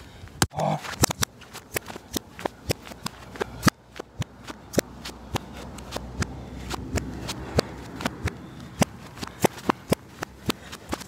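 A size-4 football being juggled with the feet and knees: a steady run of short, sharp touches, about two to three a second, with feet scuffing on sandy ground in between.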